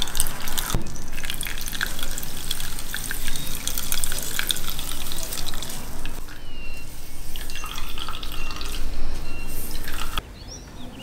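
Beet juice streaming and dripping through a metal mesh sieve, with many small wet clicks as the pulp in a mesh straining bag is squeezed by hand. It stops shortly before the end.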